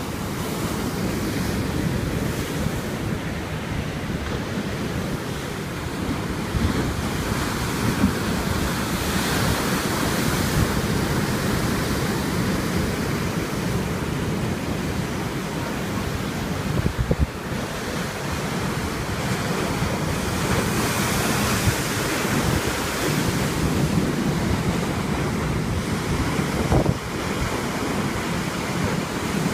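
Sea waves washing onto the shore, with surges of surf about a third and two thirds of the way through, and wind buffeting the microphone with a low rumble.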